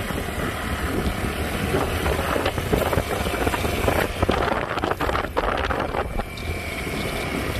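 Wind buffeting the microphone of a moving rider's camera, a steady low rushing with road and tyre noise from cycling. A few short clicks come about halfway through.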